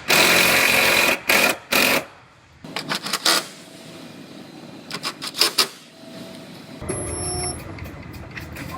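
Sheet metal screws run in with a power drill: a run of about a second, then two short bursts, followed by a few light clicks. A steady low hum sets in near the end.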